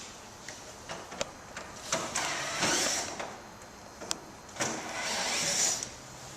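Handling noises from work on plastic car-body parts: a few sharp clicks and two scraping rubs, each about a second long.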